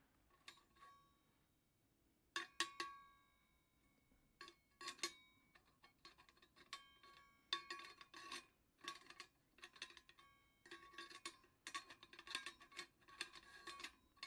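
Faint metal clinks and knocks from the steel pot supports and burner of a Coleman 508A gasoline stove as they are handled with a tool. Each knock rings briefly, and the knocks come in irregular clusters of several a second from about two seconds in.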